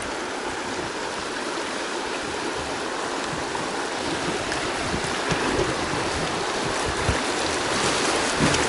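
River water rushing over a shallow rocky riffle as an inflatable boat drifts into it, the rush growing louder about halfway through. A few low thuds come near the end.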